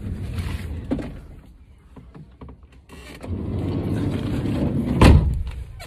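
Someone climbing into a minivan taxi: rustling and knocks of the phone against clothing, then a steady rumble and a rolling sound that ends in a loud thump about five seconds in, as a door shuts.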